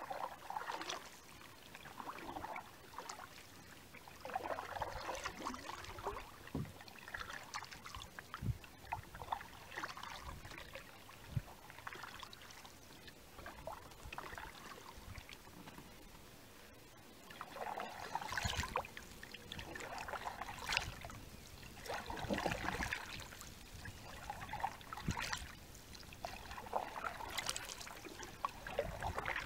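Canoe paddle strokes in lake water: irregular swishes and splashes, with water trickling off the blade between strokes, and a quieter pause midway.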